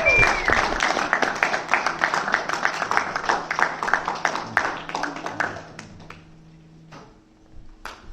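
Congregation applauding, with a voice calling out briefly at the start; the clapping thins out and stops about six seconds in, leaving a couple of faint knocks.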